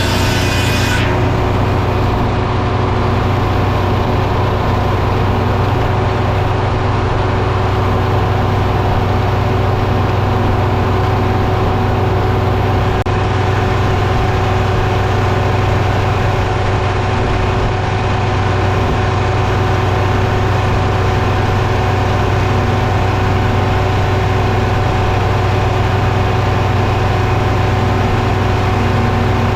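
Engine running steadily with a low drone. A high whine dies away about a second in.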